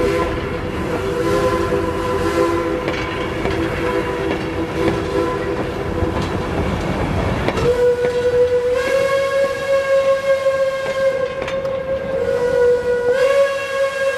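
Steam locomotive whistles blowing long and steadily. For the first half they sound a three-note chord; after that a single note sounds, shifting slightly up and down in pitch. Railroad cars roll past through the first half with wheels clattering on the rails.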